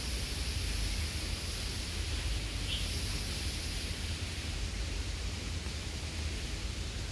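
Steady outdoor background noise: a low rumble under a constant hiss, with one brief faint high blip a little before the middle.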